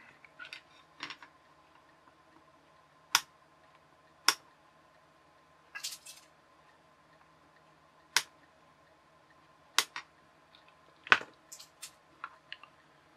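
Side cutters snipping the spare wire leads off a small circuit board: about five sharp snips a second or more apart, with a few softer clicks of handling between them.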